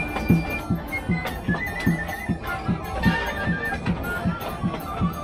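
Live folk music played by musicians in the carriage: a fast, steady drum beat about three times a second under a high stepping melody.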